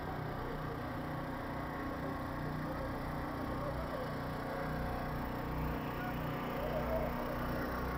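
Steady low engine hum from the passing float, running evenly with no sudden sounds.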